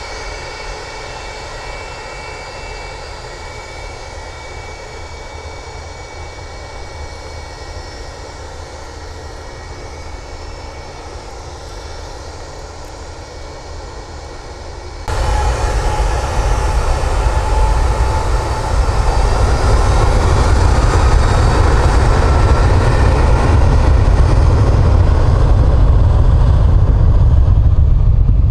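Boeing 757-200 jet engines whining steadily at low power with the airliner lined up on the runway. About halfway through the sound jumps suddenly to a much louder, deep rumble: take-off thrust.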